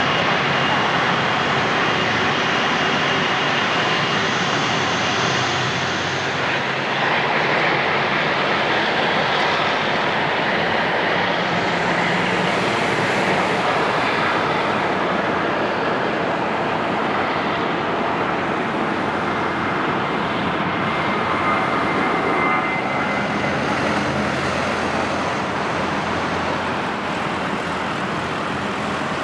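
Jet airliner landing, its engines a loud, even rush of noise with no sharp peak that stays steady throughout.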